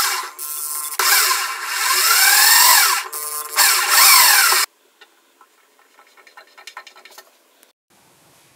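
Electric drill driving screws into a plywood drawer side in three bursts, its motor whine rising and falling with the trigger, stopping abruptly a little under five seconds in. Faint light clicks follow.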